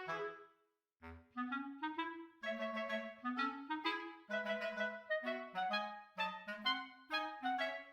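Background music: a lively melody of quick, separate notes on a woodwind-like instrument, breaking off into a moment of silence just before a second in and then starting again.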